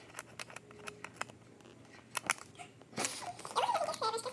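A pen writing on a sheet of paper that rests on a glass tabletop: scattered small scratches and taps. A voice comes in near the end.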